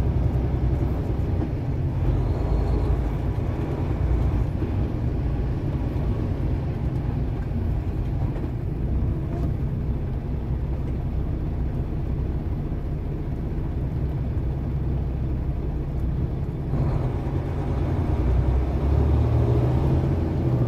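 Semi truck's diesel engine running as it creeps along in slow traffic, heard from inside the cab as a steady low rumble that swells a little near the end.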